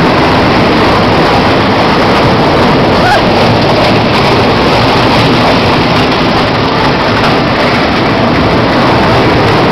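Small amusement ride train running, a loud, steady rumbling noise with no breaks.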